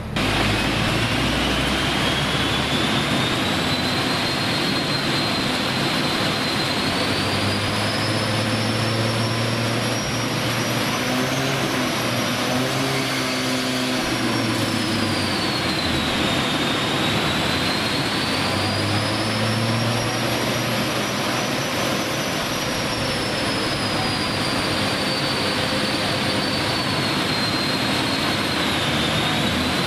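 Mazda FC RX-7's turbocharged 13B rotary engine running on a chassis dyno: a loud, steady rush with a high whine that slowly rises and falls in pitch twice as the revs are held and varied.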